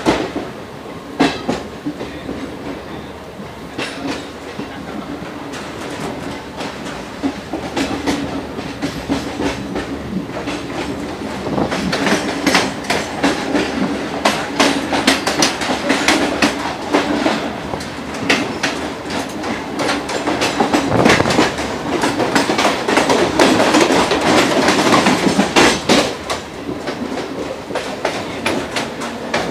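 DC electric multiple unit (EMU) local train running, heard from inside the coach: wheels clattering over rail joints and yard points with a steady hum beneath. The clatter grows denser and louder about twelve seconds in as the train crosses the yard's pointwork.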